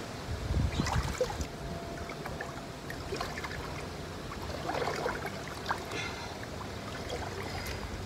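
Water sloshing and splashing in an inflatable above-ground pool as a person wades and moves through it. A few louder splashes come about a second in and again around five seconds.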